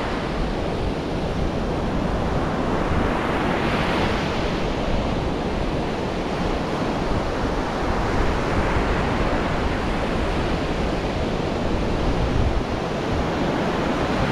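Rough ocean surf crashing on a sandy beach, a steady wash of breaking waves with one surging louder about four seconds in, and wind rumbling on the microphone.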